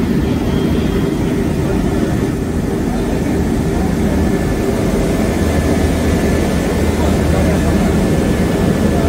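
Steady engine and cabin noise heard from inside the cargo hold of an Embraer C-390 Millennium twin-turbofan military transport. A faint steady whine joins about four seconds in.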